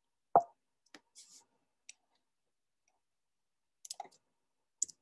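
Scattered sharp clicks and taps at a computer desk. The loudest is a knock about half a second in, and a small cluster comes near the end.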